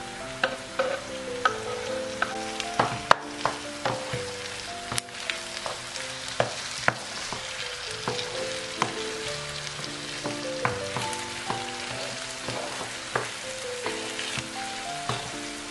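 Chicken livers sizzling in a frying pan with onion and peppers, stirred with a wooden spoon: a steady frying hiss with sharp, irregular knocks and clicks of the spoon against the pan, the loudest about three seconds in.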